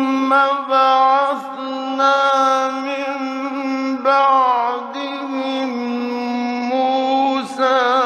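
A male Quran reciter chanting in long, held, ornamented melodic notes, with short breaks between phrases, from an old radio recording.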